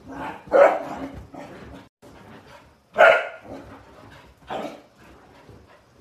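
A small dog barking in short, sharp yaps while playing, the loudest about half a second in, at three seconds and at four and a half seconds, with softer yips between.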